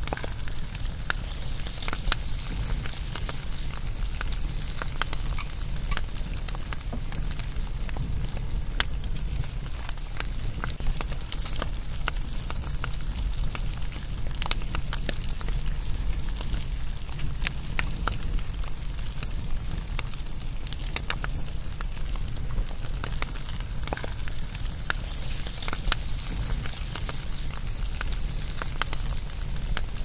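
Wood fire crackling: irregular sharp pops and snaps scattered over a steady low rumble.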